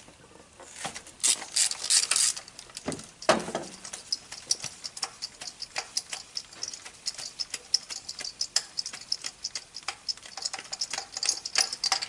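Ratchet wrench clicking in quick, irregular runs as a spark plug is tightened into the cylinder head, with a few louder metal clinks near the start.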